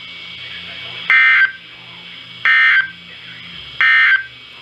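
Three short, loud bursts of Emergency Alert System SAME digital data tones, about a second apart: the end-of-message code that closes a weather alert broadcast.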